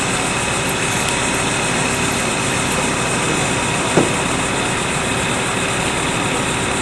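Heavy equipment engine idling steadily, with one short sharp knock about four seconds in.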